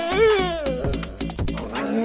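Background music with a drum beat. A drawn-out, wavering high call rides over it in the first second.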